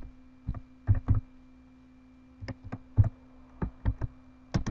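Computer keyboard being typed on: about a dozen sharp, irregularly spaced keystroke clicks over a faint steady hum.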